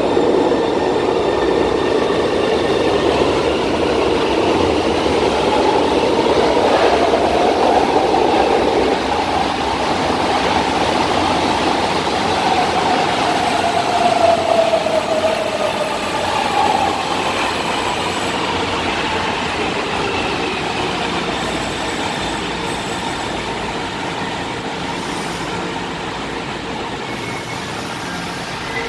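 A metro train running through the station and slowing at the platform. Its electric traction motors whine, rising and then falling about halfway through, over steady wheel and running noise that fades toward the end.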